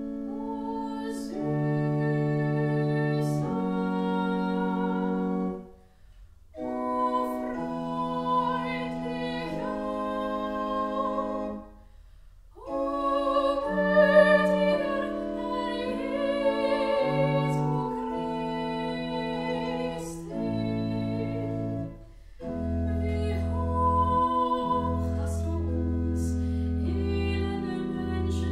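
Soprano singing with a 1760 pipe organ accompanying on sustained notes. The music runs in phrases, with brief breaks between them.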